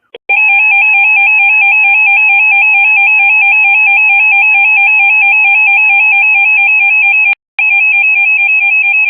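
Emergency Alert System attention tone: a loud, harsh electronic tone warbling rapidly between two close pitches, which breaks off briefly about seven seconds in and then resumes.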